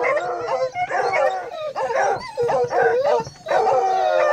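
Hunting hounds baying and howling, several voices overlapping in long wavering cries, with a brief lull about three and a half seconds in.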